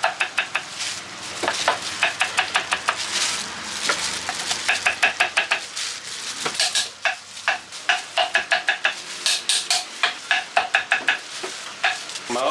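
A crinkle-cut knife chopping fruit on a wooden cutting board, in quick runs of sharp chops about seven a second, each stroke with a light metallic ring.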